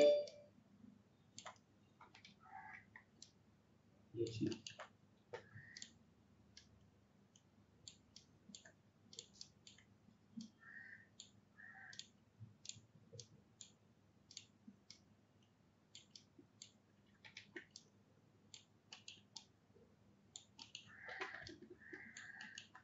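Faint, irregular clicks of a computer mouse and keyboard, about two a second, as vertices are selected and edited in 3D modelling software.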